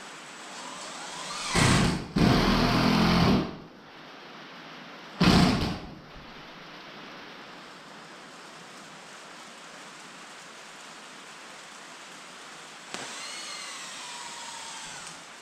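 A motorised power tool running in two short bursts over a steady hiss: one of about two seconds, then a shorter one a few seconds later.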